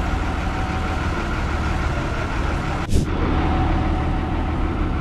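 Fiat 70 forklift's engine running steadily as it slowly pulls a heavy machine off a trailer, with one short sharp noise about three seconds in.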